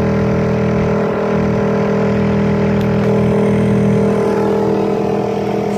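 Boat's outboard motor running at a steady speed, a constant even drone.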